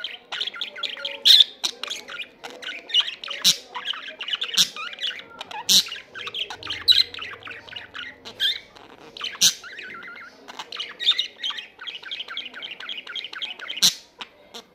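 Male budgerigar warbling: a steady run of fast chirps and chatter, broken every few seconds by sharp clicks and squawks.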